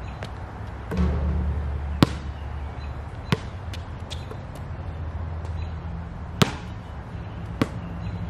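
A basketball bouncing on an outdoor hard court, four sharp separate bounces, over background music with a steady bass line that comes in about a second in.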